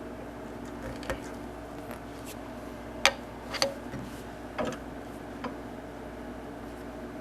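Five or six sharp clicks and knocks, the loudest about three seconds in, over a steady machine hum.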